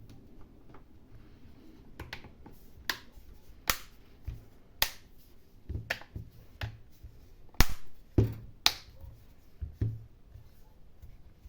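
Irregular sharp clicks and light knocks, about ten of them, the loudest a little past the middle, from hands handling the reassembled tablet and its small plastic parts.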